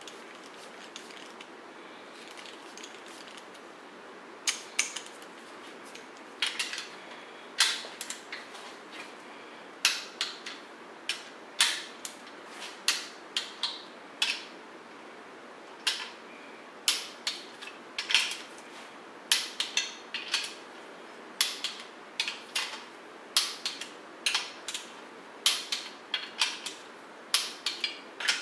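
A torque wrench ratcheting on the main bearing cap bolts of a 440 Mopar big-block as they are tightened in stages toward 85 foot-pounds. After a few quiet seconds, sharp metallic clicks in short groups follow one another, several a second.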